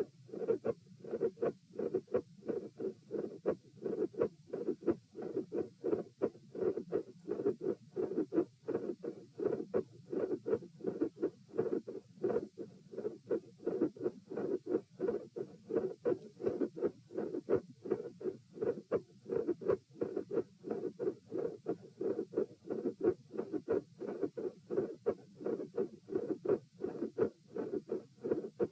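Heartbeat heard by auscultation: a steady run of beats, each with a mid-systolic click between the first and second heart sounds and a split second heart sound.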